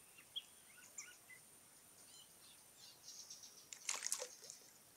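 Faint bird chirps, then about four seconds in a short swishing splash as the fishing rod is jerked up and the float skips in the pond water.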